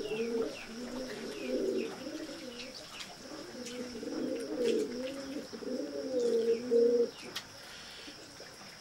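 Pigeons cooing in one continuous wavering run that stops about seven seconds in, with short high chirps of small birds over it.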